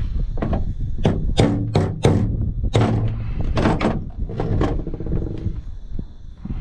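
A run of sharp knocks and clunks, about eight in the first five seconds, over a low steady hum.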